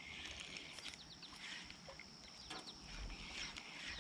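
Faint outdoor ambience with a few birds chirping now and then.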